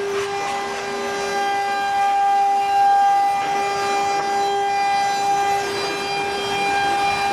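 CNC router spindle running at speed with a steady high whine and overtones, its bit routing grooves into a fibreboard panel with a rough cutting noise underneath.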